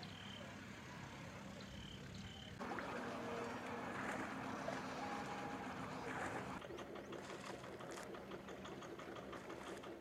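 A small boat's engine running steadily, with a louder rush of noise for about four seconds in the middle.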